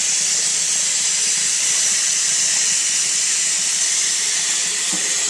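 Tap water pouring into a sink as it fills, a steady, loud hiss of splashing water heard up close.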